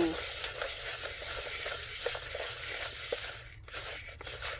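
Stirring a thick, dry mixture of peanut butter and powdered ingredients: a continuous scraping rustle with a few light clicks, dying down near the end.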